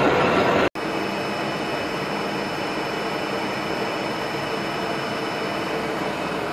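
Dean Smith and Grace Type 21 lathe turning a long grade 5 titanium bar, the tool cutting under load. Under a second in the sound breaks off abruptly, and the lathe then runs on quieter and steadier with a faint steady high whine.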